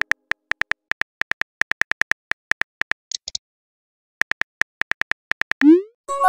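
Texting-app sound effects: a rapid run of phone keyboard typing clicks, a short high blip about three seconds in, a pause, more typing clicks, then a quick rising swoop as a message is sent and a ringing chime starting just before the end.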